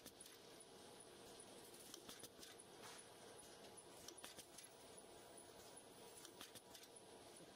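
Faint running of a spring roll wrapper machine and its mesh conveyor: a low steady noise with scattered light clicks.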